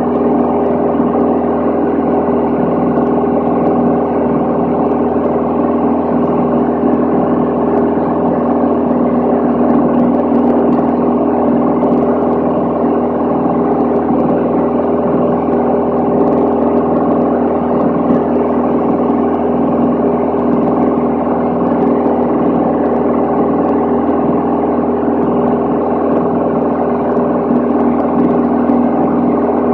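Van's RV-10 light aircraft's piston engine and propeller heard from inside the cabin: a loud, steady drone made of several constant tones that holds an unchanging pitch at constant power.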